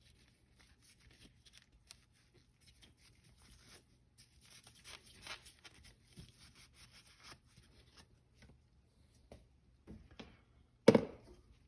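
Faint rubbing and scraping as the oil filter cap is wiped clean, in many small irregular strokes, with one sharp knock near the end.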